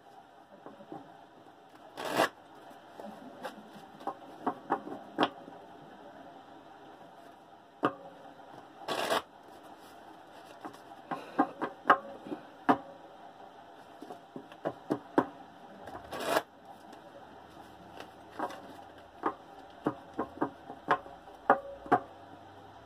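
A tarot deck being shuffled by hand: a run of soft card slides and sharp snaps, with three louder, half-second flurries about seven seconds apart.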